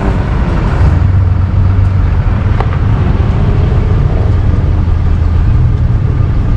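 Motor vehicle engine running steadily with a loud low rumble, with a brief click about two and a half seconds in.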